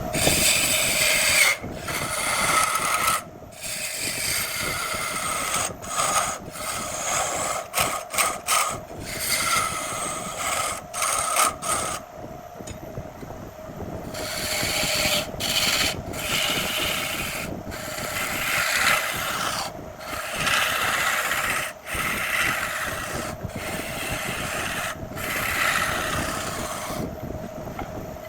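Wood lathe running with a steady hum, while a hand tool works the spinning jackfruit wood in repeated scraping passes, broken by short pauses as the tool is lifted off.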